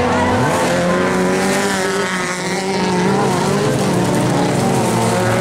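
Several autocross race cars running together on a dirt track, their engines revving at different pitches that rise and fall.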